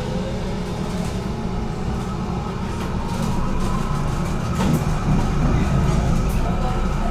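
GTL8 tram running along the track, heard from inside the car: wheel and rail rumble with a faint electric motor whine rising in pitch as it gathers speed. There is a louder clatter about four and a half seconds in.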